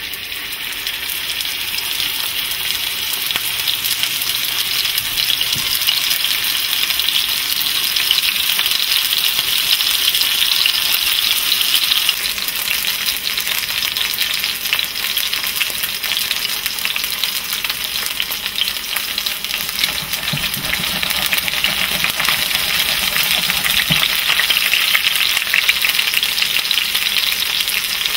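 Chicken breast frying in hot oil in a cast-iron skillet: a loud, steady sizzle with fine crackle, building over the first couple of seconds as the meat goes into the oil.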